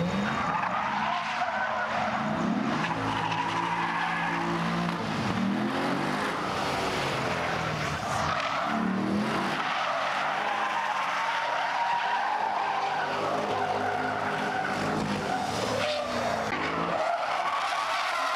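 Chevrolet Corvette C8's V8 revving up and down over and over while its rear tyres squeal and scrub through a sustained drift.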